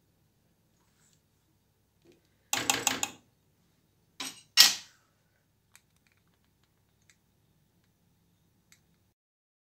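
Metal ladle clinking against a stainless steel soup pot: a quick rattle of taps about two and a half seconds in, then two sharper clinks a little later, the second the loudest, followed by a few faint ticks.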